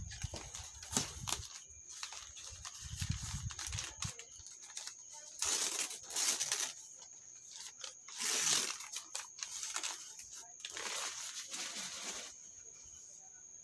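Paper and cardboard packaging rustling and crinkling in irregular bursts as a box of plants is unpacked by hand. A steady high cricket chirr carries on behind it.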